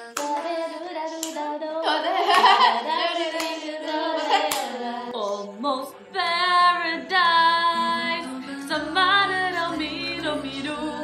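A young woman singing a slow melody with long, wavering held notes. Hand claps come near the start.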